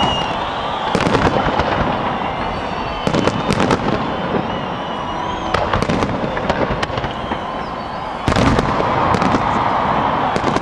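Aerial firework shells bursting in a display: sharp bangs followed by crackling, coming in clusters about every two to three seconds over a continuous rumble.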